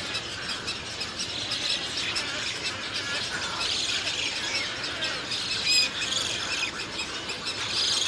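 Roseate spoonbill chicks begging for food at the nest, a steady run of many short, high calls, with one sharper, louder call a little before six seconds.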